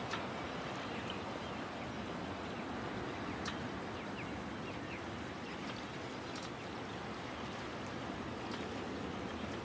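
Steady outdoor hiss of a still dawn anchorage, with faint short bird chirps scattered through and a few sharp ticks, one right at the start and others about three and a half and six and a half seconds in.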